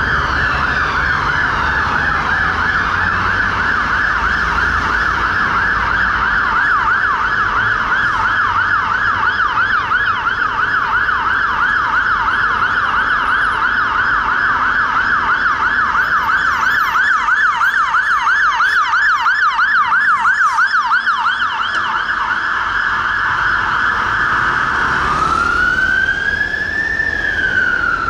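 London Fire Brigade aerial ladder truck's siren on a fast yelp, a rapid rise-and-fall warble several times a second, switching near the end to a slow wail that rises and then falls. Low traffic rumble underneath.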